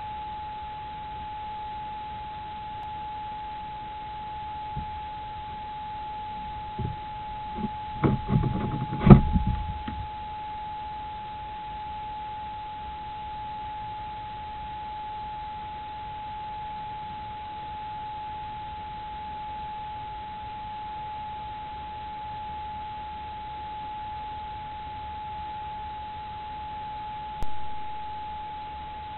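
A steady high-pitched electronic whine from an infrared night camera, with a cluster of bumps and knocks about eight to ten seconds in and a single sharp knock near the end.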